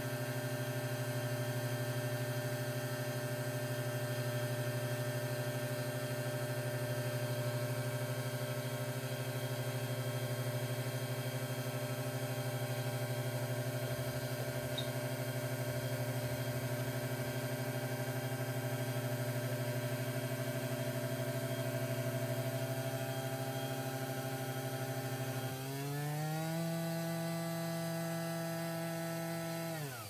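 Breville Nespresso Vertuo coffee machine running as it brews a cup of coffee, with a steady mechanical drone. About four seconds before the end, the pitch rises and holds higher, then the machine cuts off as the brew finishes.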